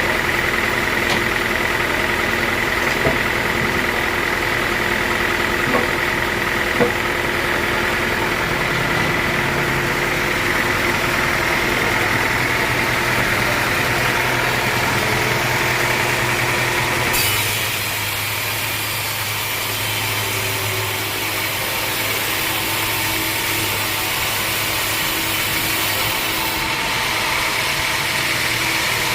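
Engine-driven homemade band sawmill running steadily with a constant whine. About two-thirds of the way through, the sound changes abruptly: the low hum drops and a hiss rises. It shifts back shortly before the end. A few sharp knocks come in the first seconds.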